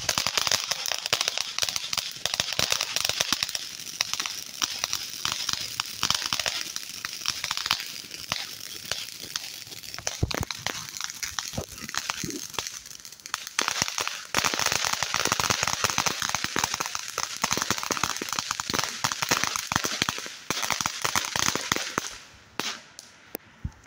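Ground fountain firework spraying sparks with a dense crackle over a steady hiss. It dies away near the end, leaving a few last pops.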